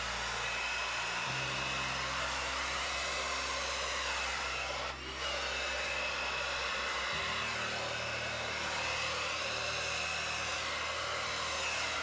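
Handheld hair dryer running on its low setting, a steady rushing whir of air with a faint whistle, dipping briefly about five seconds in. It has a funny sound to it, as if something is inside it.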